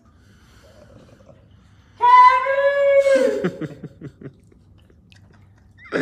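A voice holding one long, high, loud note for about a second, starting about two seconds in, then sliding down and breaking off.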